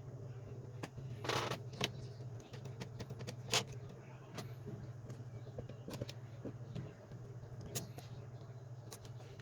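Scattered sharp clicks and taps from handling a smartphone and its small parts, with one short rustling burst about a second in, over a steady low hum.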